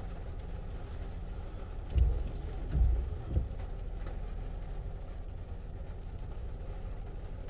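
A car running, a steady low rumble with a faint engine hum, broken by a few louder low thumps about two to three and a half seconds in.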